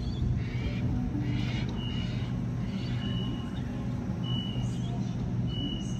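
Sydney Trains double-deck electric train standing at the platform, humming steadily. Short high beeps repeat about once a second from about two seconds in.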